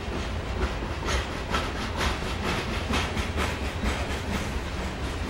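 Loaded covered grain hopper cars of a freight train rolling past, steel wheels clacking on the rails about twice a second over a steady low rumble.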